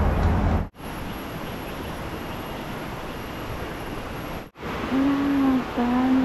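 Outdoor ambience across quick cuts: a low rumble that stops abruptly under a second in, then a steady quieter hiss. After that comes a rushing muddy river, with three short held, pitched tones over the water in the last second and a half or so.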